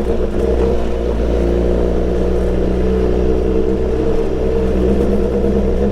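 BMW S1000XR's inline-four engine running through an Akrapovic full exhaust system at steady revs.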